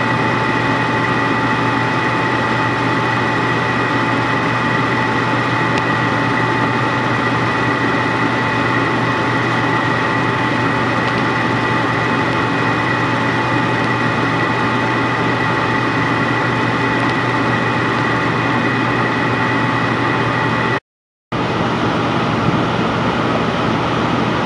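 Propane furnace running steadily: an even hum of burner and blower with a few constant tones, broken once by a half-second gap of silence near the end.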